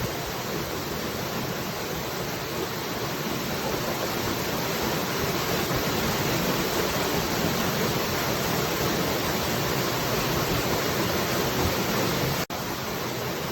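Steady, even rush of falling water, with a split-second gap near the end.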